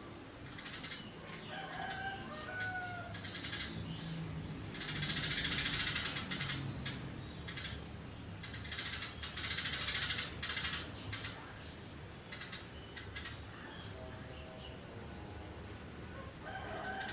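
Eurasian tree sparrow calling: scattered short chirps, with two long, rapid chattering bursts about five and nine seconds in.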